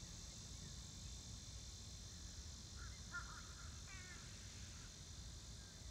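Faint outdoor ambience: a steady high hiss with a few short, faint bird calls about three and four seconds in.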